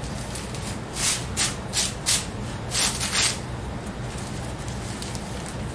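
Hands brushing and rubbing at the neck of a barber cape during a home haircut. There is a quick run of about six rustling strokes in the first half, over a steady low hum.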